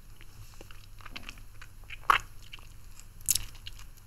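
Hard lollipop being sucked and moved in and out of the mouth close to a microphone: small wet mouth clicks, with two louder clicks about two and three seconds in.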